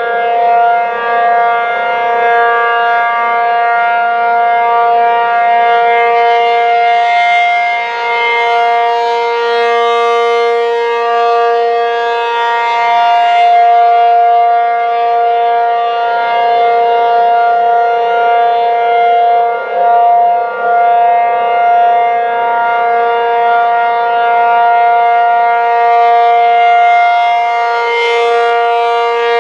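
ACA Penetrator-50 rotating electronic civil defense siren sounding a steady two-note tone during its monthly test, holding pitch throughout while its loudness swells and dips as the horn turns.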